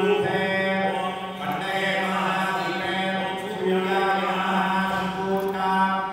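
Priests chanting Sanskrit mantras in a steady recitation, the voices holding one low pitch with brief breaths.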